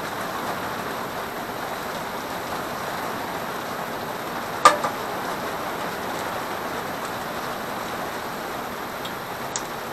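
Steady, even background hiss with one sharp click about halfway through and a faint tick near the end.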